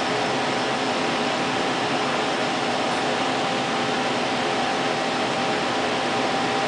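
Steady rush of ventilation and cooling fans running without change, with a faint steady hum of a couple of tones underneath.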